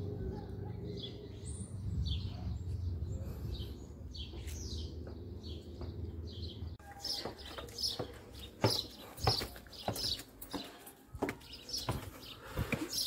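Small birds chirping, with a low steady rumble in the first half. After an abrupt change about seven seconds in, irregular sharp taps of footsteps on stone paving.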